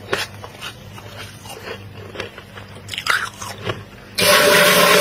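Thick freezer frost crunching, with scattered small crunches, then a loud grating crunch about four seconds in that lasts about a second. A low steady hum runs underneath.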